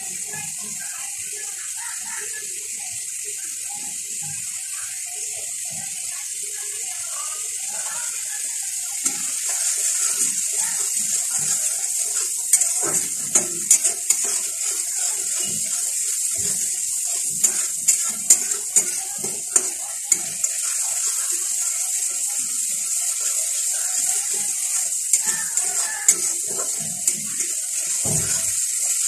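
Grated onion and spice masala sizzling in hot oil in a kadai, a steady hiss that grows louder about nine seconds in. From about twelve seconds on, a metal spatula scrapes and clicks against the pan as the masala is stirred.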